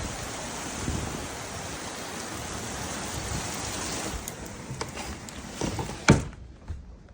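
Steady rain, a dense even hiss that thins out after about four seconds. Near the end a sharp knock comes, and the rain sound then drops to much quieter, with a few scattered ticks.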